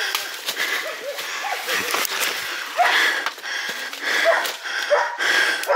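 A man breathing hard and wheezing as he hurries through dense brush, with leaves and branches crackling and rustling against him and underfoot.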